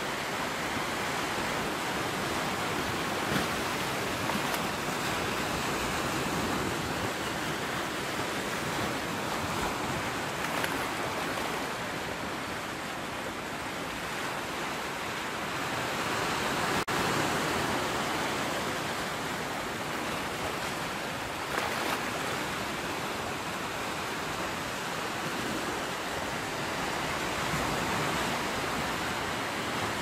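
Sea surf washing onto the shore in a steady rush of noise that swells and eases slowly.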